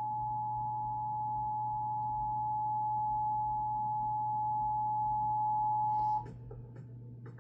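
Emergency Alert System attention signal: a steady two-tone alarm (853 Hz and 960 Hz sounded together) that cuts off about six seconds in. A low hum runs underneath, and a few faint clicks follow the tone.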